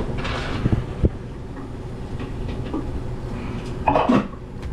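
Knocks and handling noises from a plastic sediment filter housing being wrestled loose, with a few sharp knocks about a second in, over a steady low hum.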